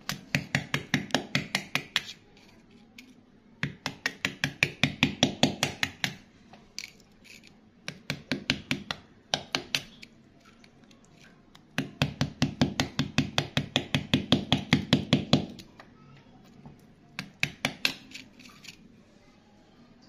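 A wooden stick scraping and prodding wet, gravelly soil in quick strokes, about eight a second, in five bursts with short pauses between; the longest burst comes past the middle.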